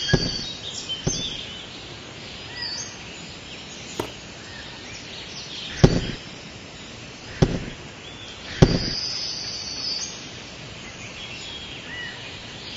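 About six sharp taps, spaced a second or more apart, as miniature clay bricks are set down into wet cement, over steady outdoor ambience with faint bird chirps.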